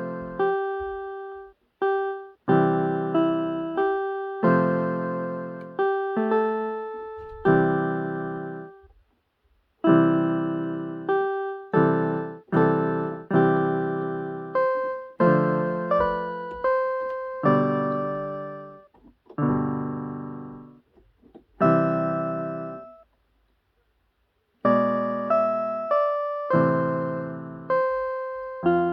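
Piano played at a slow pace: chords struck and left to ring and fade, with short pauses about nine seconds in and again just past twenty-three seconds.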